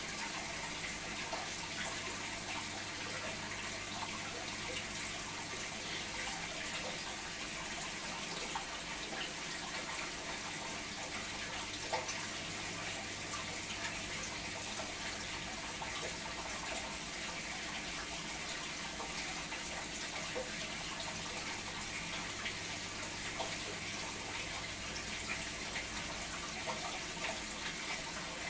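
Aquarium air bubbles and filter water: a steady bubbling, trickling water sound.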